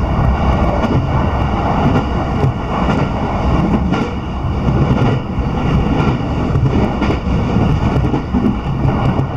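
Sobu Line commuter train running at speed, heard from inside the carriage: a steady rumble of wheels on rails and running gear.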